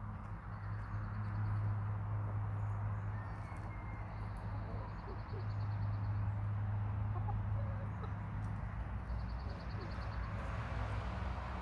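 Hens clucking softly over a steady low hum, with a rapid high trill coming and going three times.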